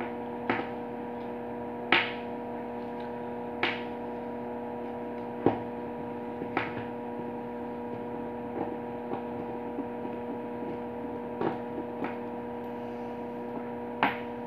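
Machined metal motor-mount parts and bolts being handled and set down on a wooden table: about seven scattered clicks and knocks, loudest about two and five and a half seconds in. A steady electrical hum runs underneath.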